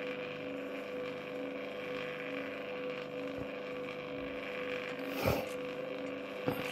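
Create RC5-1 antenna rotator's motor and gearbox running, turning the rotor counterclockwise: a steady hum. A sharp knock sounds about five seconds in, and a smaller click near the end.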